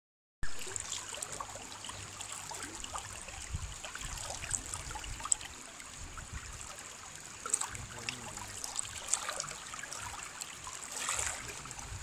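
Shallow, muddy stream flowing fast over a flat bed close to the microphone: a steady rushing burble dotted with many small splashes and plops.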